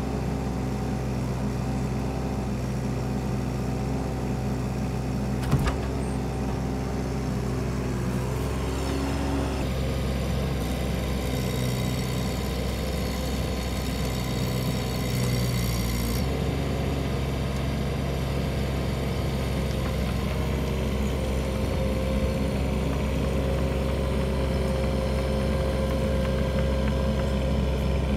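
Bobcat 319 mini excavator's diesel engine running steadily while the boom and log grapple work, with a single sharp knock about five and a half seconds in.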